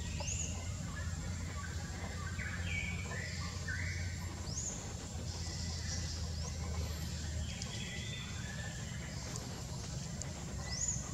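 Outdoor ambience with birds calling: a short rising whistled call, repeated a few times, and a run of shorter chirping calls about two to three seconds in, over a steady low background hum.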